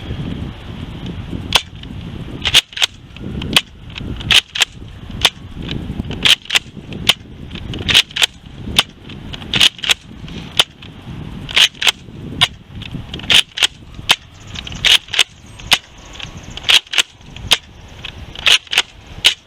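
Nerf Modulus Tri-Strike's spring-powered main blaster being primed and fired over and over, emptying its magazine of Elite darts: a string of sharp plastic clacks, often in close pairs, about one shot a second.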